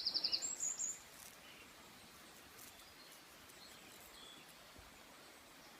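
A small songbird singing: a loud run of rapid, high repeated notes that ends about a second in, followed by faint, scattered high chirps.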